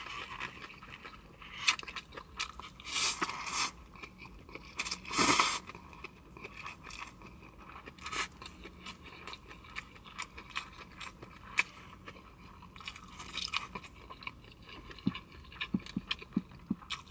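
Close-up chewing of stir-fried rice noodles with bean sprouts and beef: wet mouth clicks and crunching, with a few louder bursts about three and five seconds in.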